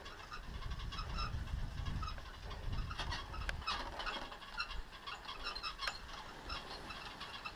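Skis scraping and chattering over hard, rough-packed snow during a downhill run, with wind buffeting the helmet or chest camera's microphone as a low rumble. A few sharper clicks come about three and a half and six seconds in.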